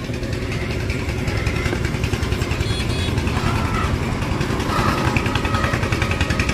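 An engine idling steadily, a low even hum with a rapid pulse.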